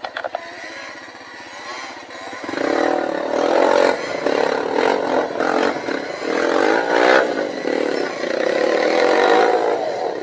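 Dirt bike engine revving hard in repeated bursts under load on a rocky uphill climb, its pitch rising and falling. A few knocks in the first couple of seconds, then the revving turns loud.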